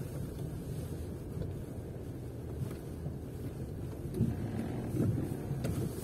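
Car cabin noise while driving slowly on a dirt forest road: a steady low rumble of engine and tyres, with a couple of brief louder swells about four and five seconds in.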